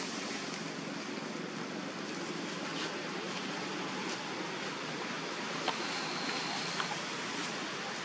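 Steady outdoor background hiss with a wind-like quality. A few faint clicks and a brief high thin tone come about six seconds in.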